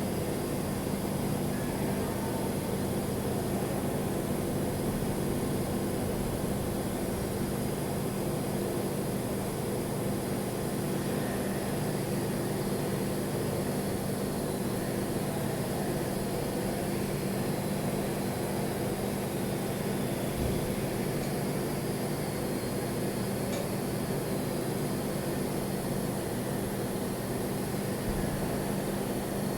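Welding on stainless steel: a steady buzzing hum with an even hiss above it, unbroken throughout.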